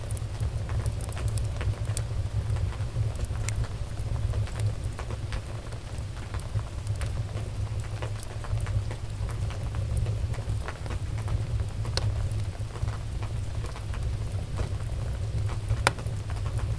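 Wood fire crackling in a fireplace: a steady low rumble with scattered sharp pops and snaps, the loudest pops about twelve seconds in and near the end.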